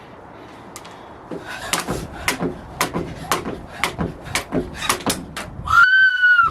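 Jump rope slapping the floor on each turn, about twice a second, as she keeps skipping. Near the end a short, loud, high held tone cuts in.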